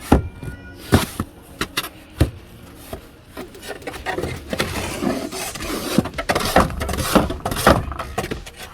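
Snow shovel clearing deck stairs: a few sharp knocks of the blade on the steps, then about 3.5 seconds in a steady scraping of snow with repeated knocks.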